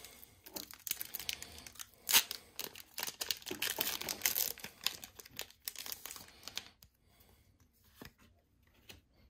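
A foil Pokémon booster pack wrapper being torn open and crinkled by hand: a rapid run of crackles with one sharp rip about two seconds in, then much quieter from about seven seconds as the cards are slid out.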